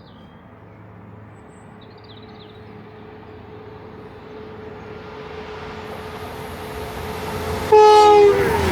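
CrossCountry Voyager diesel multiple unit approaching at speed, its running noise growing steadily louder. Near the end it gives one short, really loud horn blast whose pitch drops as the train passes.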